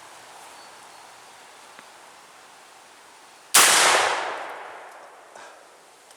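A Harrington & Richardson 10-gauge shotgun firing one 3.5-inch magnum turkey shell. A single sharp blast comes about three and a half seconds in and rings out, fading over about a second and a half.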